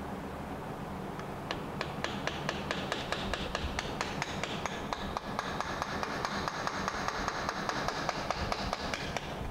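Light, rapid hammer taps on a socket extension used as a punch against a corroded, stuck alignment dowel pin in the AC line fitting of a cast-aluminum compressor. The taps begin about a second in and run at about four to five a second, growing denser.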